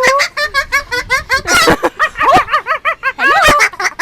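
Pet talking bird calling and chattering: a rising glide at the start, then a quick run of short notes that rise and fall in pitch.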